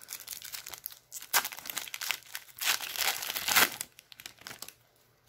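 Foil wrapper of a trading-card pack being torn open and crumpled: irregular crinkling crackles, loudest in the middle, that die away about four seconds in.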